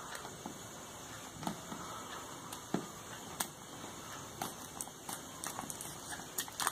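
Faint handling of a cardboard smartphone box: fingers rubbing the box and a fingernail picking at its paper seal sticker, giving scattered soft clicks and scrapes over a low hiss.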